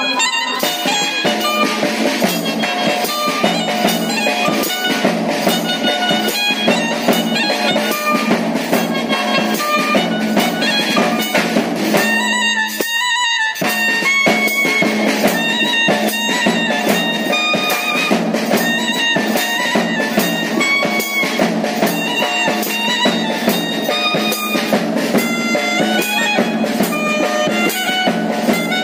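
Band music: a reedy wind-instrument melody over a steady drone, with drums keeping time. The drone and low part drop out for about a second, about twelve seconds in.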